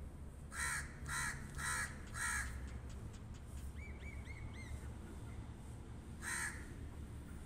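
Crow cawing: four harsh caws in quick succession, then a single caw again after a pause of a few seconds.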